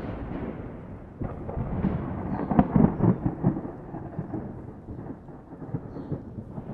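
Thunderstorm: rolling thunder over steady rain, the rumble swelling to its loudest about three seconds in and then easing off.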